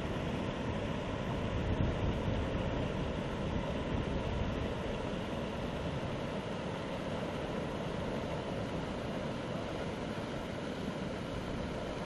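Steady rushing of a fast, flood-swollen river, with wind on the microphone.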